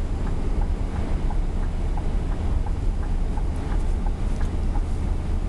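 Scania R500's V8 diesel engine and the road heard from inside the cab while the truck drives: a steady low drone, with faint, irregular light ticks over it.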